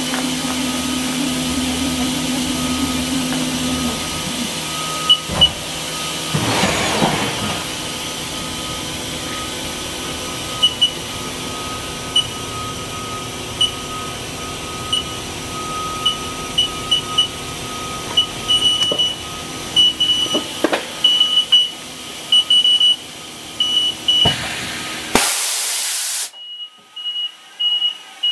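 Haas EC-400 horizontal machining center running with a steady hum, while short high beeps sound again and again from its control panel as keys are pressed. Near the end a loud hiss of air sounds, after which the machine's background noise drops away and the beeping carries on.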